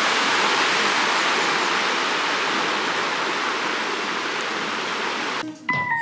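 Mountain stream rushing over a rocky bed, a steady rush of water. Just before the end it cuts off and a few notes of an intro tune begin.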